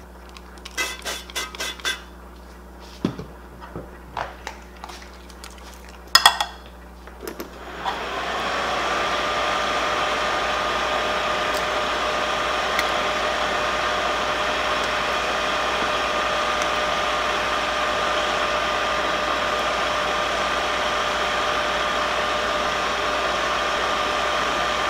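A few utensil clicks and knocks, then about eight seconds in a DeLonghi MultiFry air fryer's fan starts up and runs steadily, a whirring hum with two steady tones.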